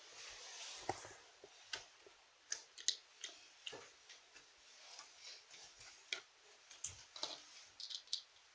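Slime being squeezed and poked, making irregular sticky clicks and small pops.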